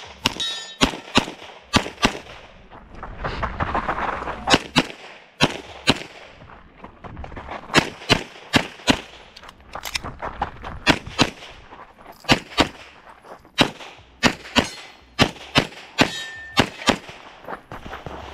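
Pistol shots fired in rapid strings, mostly in quick pairs, with a few short breaks between strings.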